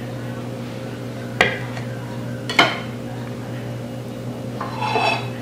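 Metal offset spatula clinking sharply twice against a ceramic plate, then set down with a short ringing clatter near the end, over a steady low hum.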